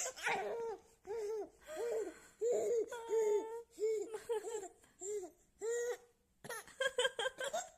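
Baby laughing in a string of separate short laughs, each rising and falling in pitch, about one every half second or so, breaking into quicker giggles near the end.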